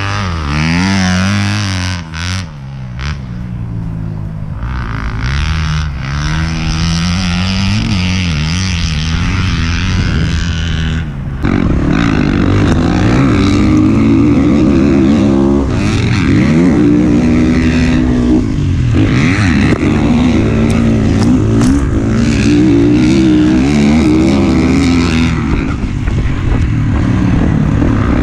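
Dirt bike engine revving up and down through the gears. About eleven seconds in it becomes louder and closer: the rider's own 2019 Kawasaki KX450 single-cylinder four-stroke, heard from the helmet camera as it revs hard and shifts.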